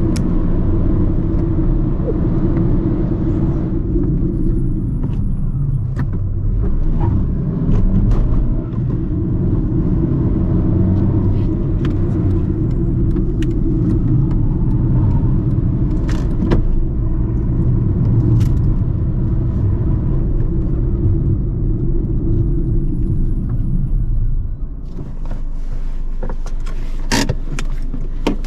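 2010 Fiat Panda's 1.1-litre four-cylinder petrol engine pulling at steady autobahn speed, a low drone of engine, tyres and wind with an occasional sharp click. About 24 seconds in, the drone drops off and gives way to a quieter engine sound with a few sharp clicks.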